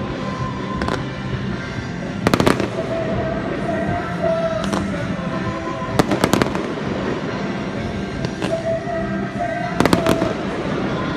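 Aerial fireworks going off: three clusters of sharp bangs a few seconds apart, with smaller single bangs in between. Music plays steadily underneath.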